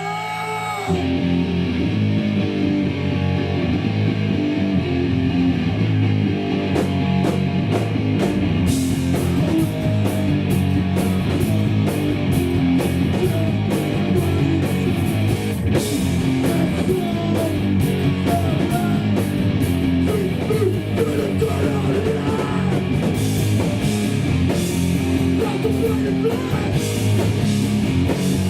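Hardcore punk band playing live, loud electric guitars and rhythm section starting a song about a second in; cymbals join after several seconds.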